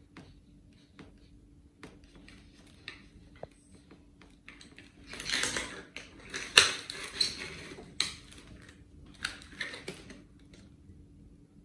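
A hollow plastic-bottle sculpture being handled, turned and shifted on a wooden table, giving light plastic clicks and taps. A louder stretch of scraping and clattering comes about five seconds in, and another near the end.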